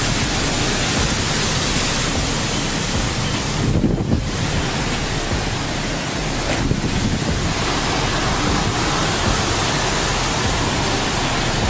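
Storm-force wind and heavy driving rain buffeting the microphone: a steady, loud rush of noise.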